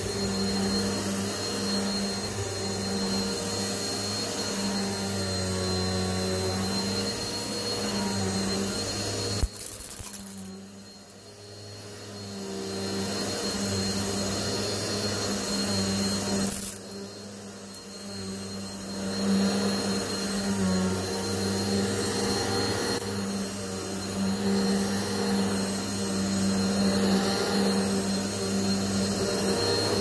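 Eureka PowerSpeed upright vacuum cleaner running on carpet with a steady motor hum. About a third of the way in a sharp click comes before the sound drops away for a few seconds and builds back. A little past halfway it dips suddenly again before returning to full strength.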